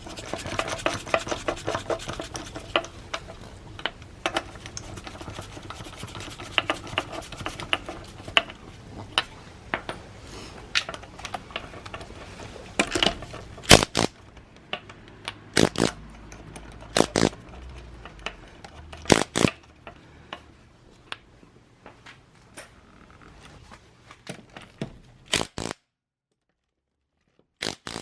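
Metal clinks, scrapes and sharp knocks of hand work with tools on a car wheel during a tyre change. They come thick and fast for the first several seconds, then thin out to single louder knocks, and the sound cuts out abruptly near the end.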